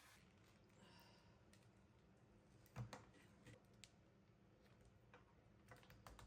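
Near silence with a few faint, scattered clicks and taps; the loudest comes just under three seconds in.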